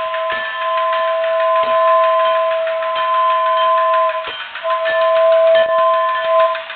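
Battery-operated toy steam locomotive's New Bright air whistle blowing two long blasts, the first about four seconds and the second about two, each two steady notes together. Faint ticking and clicking from the running toy train sounds underneath.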